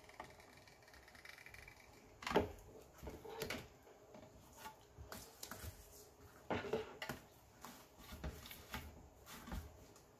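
Faint, irregular rustles, scrapes and light taps of poly burlap mesh being handled and shifted on a plastic cutting mat while it is cut with a wood-burning tool.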